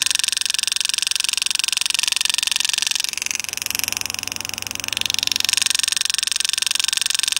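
Pneumatic air graver (power-assisted hand-engraving tool) hammering rapidly as its graver cuts lines into a coin: a steady, fast buzzing chatter that eases off for a couple of seconds midway and then picks up again.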